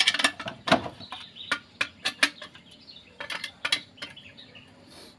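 Sharp metallic clinks and knocks as a metal rod pries and taps the aluminium crankcase halves of a small motorcycle engine apart, in several quick clusters of strikes.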